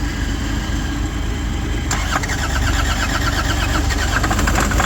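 Land Rover Defender engine straining to start in −30 °C cold on jump leads. It turns over with a steady low rumble, and about two seconds in a harsher, rhythmic rattling comes in and carries on.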